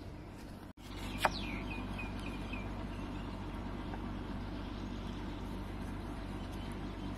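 Steady low outdoor background rumble. About a second in, a single sharp, high call falls in pitch and trails off into a few short repeated notes.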